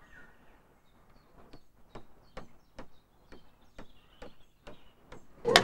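A hammer knocking on wood: a steady run of about ten sharp strikes, roughly two or three a second, starting about a second and a half in. Faint bird chirps are heard alongside.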